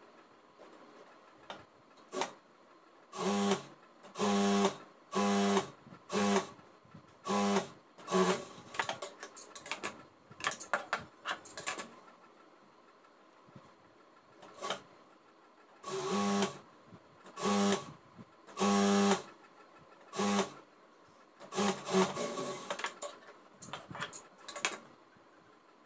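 Jack industrial sewing machine running in short bursts of under a second each, a steady hum with the clatter of stitching, starting and stopping over and over with a quiet pause of a few seconds in the middle.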